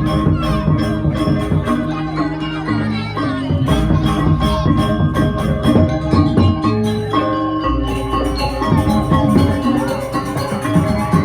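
Balinese gamelan music: tuned metal percussion struck in a quick, dense pattern over low held tones.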